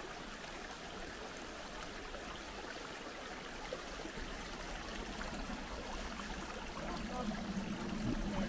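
Shallow woodland stream trickling and babbling over rocks in a steady rush, growing a little louder near the end.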